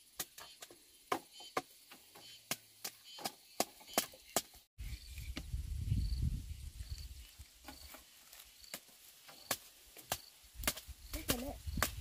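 A hand tool striking over and over: sharp, irregular knocks, two or three a second, with a low rumble coming in about halfway and the strikes growing sparser.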